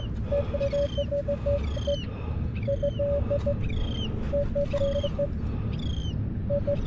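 Metal detector beeping in short, irregular runs of one mid tone as it is swept over a target. A bird calls at the same time with a falling chirp repeated about once a second, over steady low surf and wind noise.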